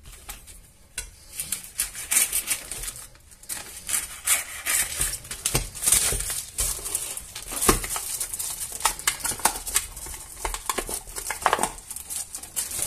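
Plastic food packaging crinkling and crackling in many quick bursts as the film lid is slit with a knife and peeled off a tray of sausages, and the stiff plastic tray is handled.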